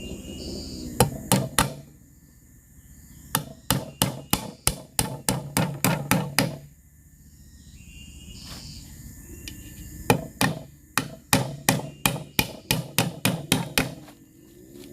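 Hammer strikes, likely on bamboo for a bench frame: a few blows, a pause, then two runs of about a dozen quick blows each, roughly four a second.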